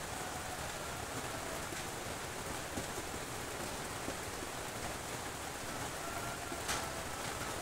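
Steady hiss of falling rain, with a couple of faint sharp ticks.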